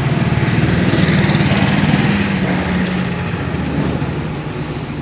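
A small engine running steadily with a fast, even low pulse, a little louder in the first couple of seconds and easing slightly near the end.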